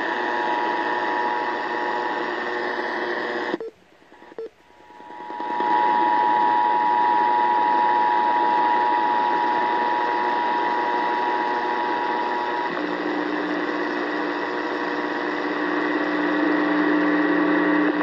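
Emergency Alert System two-tone attention signal (853 and 960 Hz together) over AM radio static from a RadioShack weather/AM-FM alert radio. The tones drop out for about two seconds around four seconds in, then come back. Around thirteen seconds in they give way to a lower steady hum under the static.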